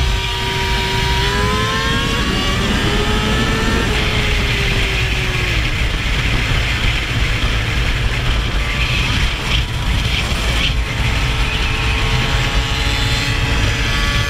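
Sport motorcycle engine running at highway speed under heavy wind rush. Its pitch rises about a second in as the bike accelerates, falls back by about six seconds in, then holds steady.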